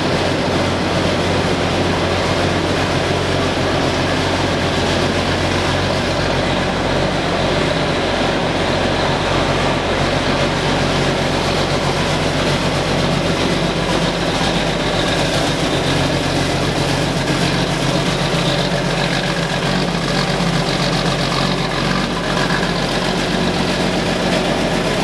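John Deere 8960 tractor's Cummins six-cylinder turbo diesel idling steadily just after a cold start, having sat for about a year.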